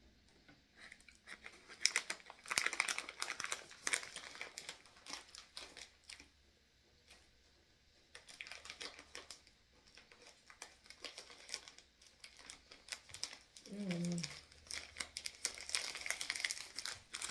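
A small snack wrapper crinkling as it is handled and folded, in several bouts of crackling. Near the end a short falling hum of a voice is heard.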